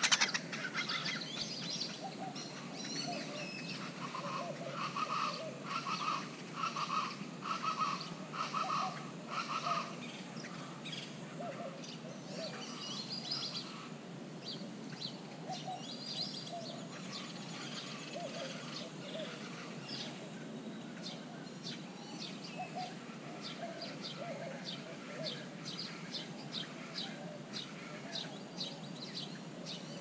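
Wild birds calling in a park: a sharp sound right at the start, then a run of about seven repeated calls from about four to ten seconds in, followed by many quick high chirps and chips, over a steady low background noise.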